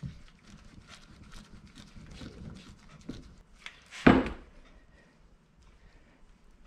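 Bricklin SV1 rear leaf spring being turned over on a workbench: light scuffs and clicks of handling, a small knock, then one heavy thump about four seconds in as the spring is set down.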